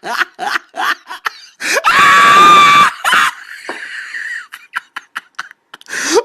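A person laughing hard: quick bursts of laughter at first, then a long high-pitched shriek about two seconds in, followed by wheezy, breathy gasps and short catches of breath.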